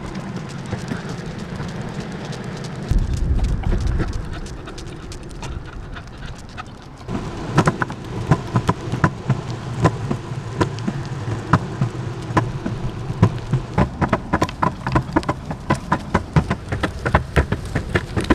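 Longboard wheels rolling over pavement with a steady rumble. From about seven seconds in, a run of sharp, irregular clicks and taps sits over the rolling, coming thickest near the end.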